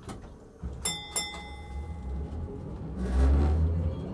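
Toden Arakawa Line tram pulling away from a stop. Its bell dings twice in quick succession about a second in, the two-ding departure signal. A low rumble of motors and wheels then builds as it gets moving, loudest near the end.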